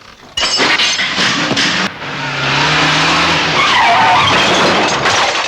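Car engine revving hard with tyres squealing, starting suddenly about half a second in and building to a sustained screech.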